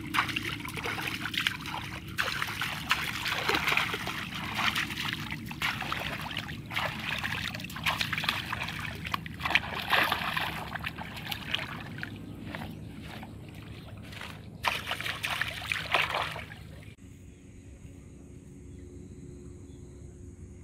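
Shallow pond water splashing and sloshing in irregular bursts as hands grope through it, feeling for fish. The splashing cuts off abruptly about three quarters of the way through, leaving a quieter steady outdoor background.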